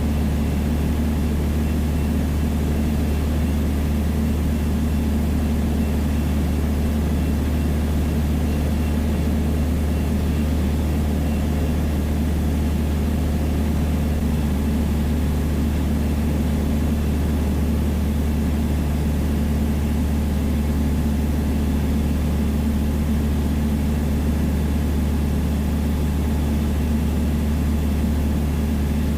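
Piper Dakota's six-cylinder Lycoming engine and propeller running steadily in level flight, a continuous low drone heard from inside the cockpit.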